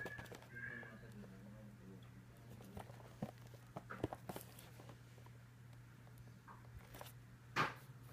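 Plastic shrink-wrap on a cardboard model box crinkling and tapping as the box is handled and turned in the hands: scattered light crackles, with one louder crackle near the end, over a steady low hum.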